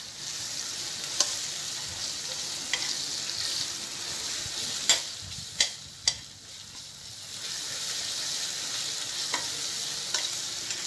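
Sliced onions, curry leaves and ginger-garlic paste sizzling in hot oil in a stainless steel pan as they are stirred. The spoon clicks sharply against the pan several times, and the sizzle dips for a moment about six seconds in.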